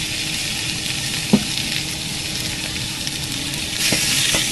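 Tomahawk steak sizzling steadily in a ripping-hot cast iron skillet with beef tallow as it sears, with a sharp knock about a second in and the sizzle growing a little louder near the end.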